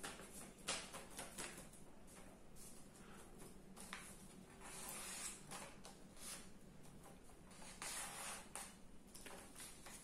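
Quiet room tone: a faint steady hum with a few brief, soft hisses scattered through it.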